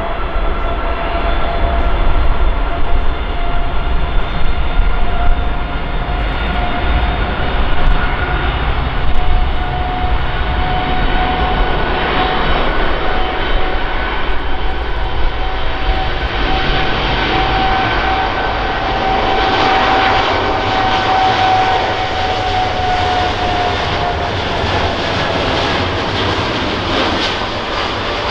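Boeing 787-8 airliner's jet engines at takeoff thrust during the takeoff roll: a loud, steady jet roar with a high whine that rises slightly in pitch, then drops over the last few seconds as the aircraft passes and nears liftoff.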